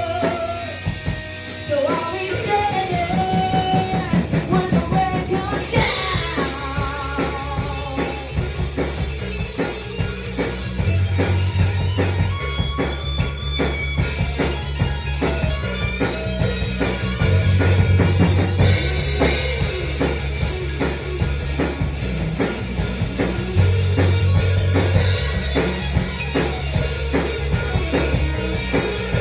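A band playing a rock song in rehearsal: drum kit keeping a steady beat under guitar and bass, with a wavering lead melody over it in the first few seconds.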